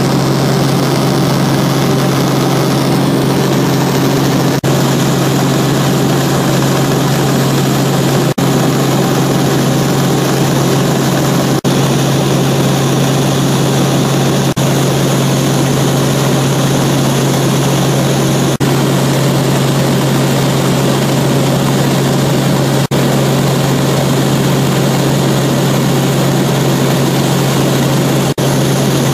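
Helicopter in flight heard from inside the cabin: a loud, steady drone of engine and rotor with a strong low hum. The sound dips very briefly a few times.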